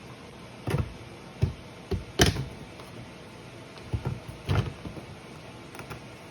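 Parts of a UV air-purifier light being handled and fitted into an HVAC unit: a series of short knocks and clunks, the loudest a little after two seconds in.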